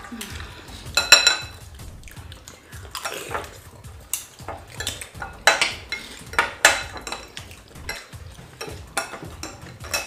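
Eating utensils knocking, clinking and scraping against dishes as food is scooped up quickly. The knocks come irregularly, with one ringing clink about a second in.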